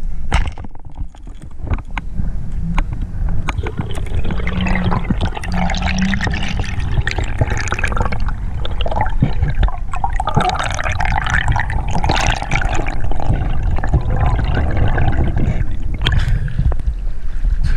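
Water rushing and gurgling around an underwater camera housing as a freediver swims up, with scattered clicks and knocks; the sound changes as the camera breaks the surface near the end.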